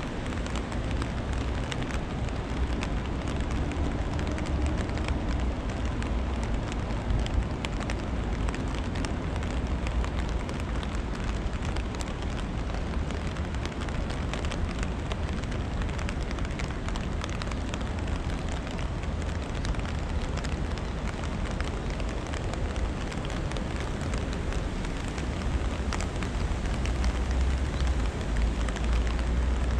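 Steady rain falling, with many small drop ticks over a constant hiss and a low rumble underneath.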